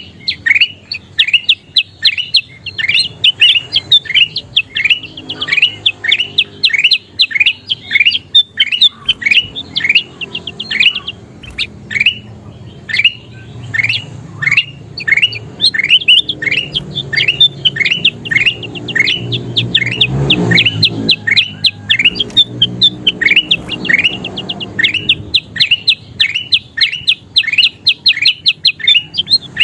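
Kutilang emas (a bulbul) calling in a fast run of short, sharp chirps, each sweeping downward, about two to three a second without pause. A low rumble runs underneath, swelling about two-thirds of the way through.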